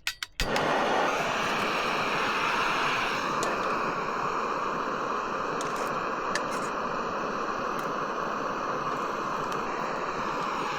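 Food sizzling in hot beef tallow in a pan on a small camp stove: a steady, loud hiss that starts suddenly about half a second in, after a few light clicks.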